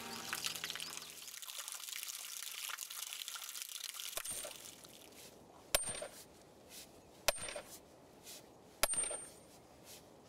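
Music fades out in the first second, then water drips at a steady pace: a sharp drop about every second and a half, starting about four seconds in, each with a brief high ping.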